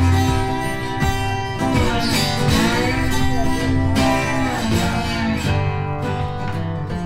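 Background music led by strummed acoustic guitar with a steady beat.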